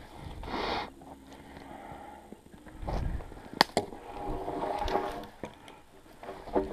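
Birch logs being handled and stacked in snow: a brushing rustle about half a second in, then wooden knocks and a sharp crack around three seconds in as logs meet, a log scraping along the pile with a faint ringing tone, and another knock near the end.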